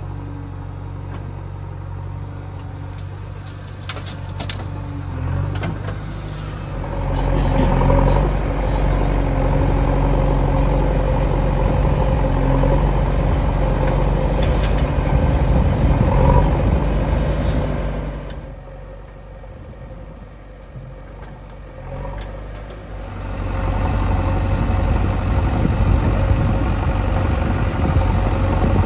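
Four-cylinder diesel engine of a JCB 3DX Eco Xpert backhoe loader running as it digs and loads soil. It runs louder, as if working harder, for long stretches, and drops back to a quieter run for a few seconds past the middle.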